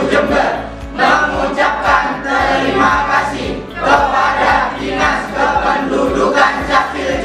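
A mixed choir of teenage boys and girls singing a song together.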